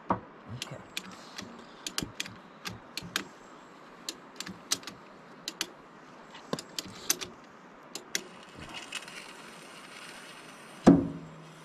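Steel hand tools clinking and clattering as they are picked through and handled, in irregular sharp clicks, with one loud metal clank and a short ring near the end.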